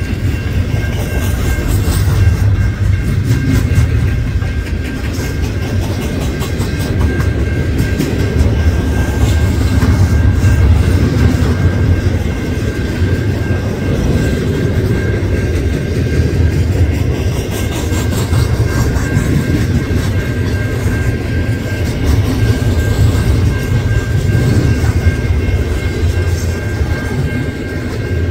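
Container freight train's cars rolling past: a steady, loud rumble of steel wheels on rail with clicks over the rail joints, and a steady high-pitched tone above it.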